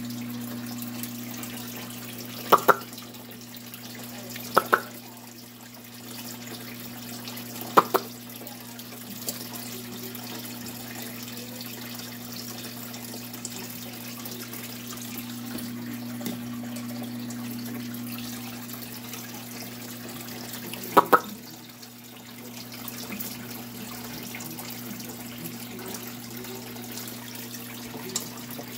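Steady running water over a low, even electrical hum, as from the water in a baby alligator's tank. Sharp double clicks cut in four times, about 2.5, 4.5, 8 and 21 seconds in.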